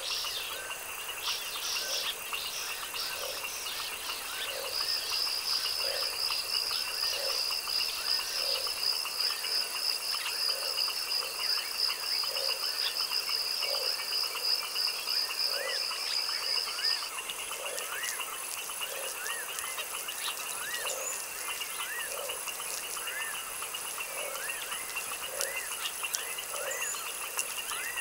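Frogs croaking in a steady, even rhythm of a little more than one croak a second, over a constant high insect chorus. A high, fast trill joins about five seconds in and stops abruptly a little past the middle.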